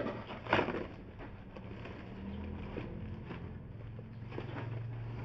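Plastic and foam wrapping crinkling and rustling as it is pulled off a wooden chair seat, loudest about half a second in, over a steady low engine-like hum that builds from about two seconds in.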